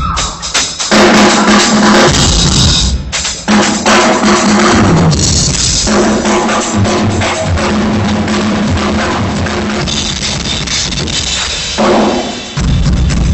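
A drum kit played live and loud, with bass drum and snare strokes driving a busy, continuous pattern; it drops back briefly a little before the end.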